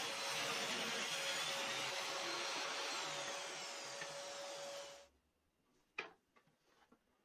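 Table saw running, its spinning blade giving a steady noise with a faint steady hum, which stops abruptly about five seconds in. A single sharp knock follows a second later, then a few faint clicks.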